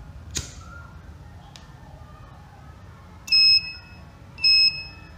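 A disposable lighter clicks as it is struck. Then the flame sensor's piezo buzzer gives two short high-pitched beeps about a second apart, the alarm signalling that the flame has been detected.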